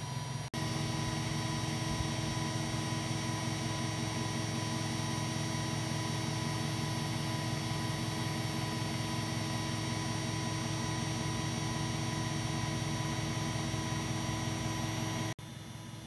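Washing machine's hotwired brushed commutator universal motor running steadily, turning the drum, a steady hum with several constant whining tones. The sound cuts out for an instant about half a second in and again near the end, and is quieter after the second break.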